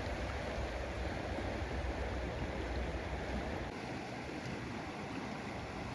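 Steady rush of flowing river water. A low rumble underneath drops away about two-thirds of the way through.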